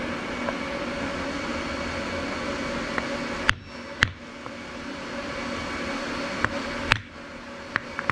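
Wooden mallet knocking hot steel laid on a wooden block on the anvil, six or seven blows starting about three seconds in, straightening a forged twisted handle without marring it. A steady machine hum runs underneath.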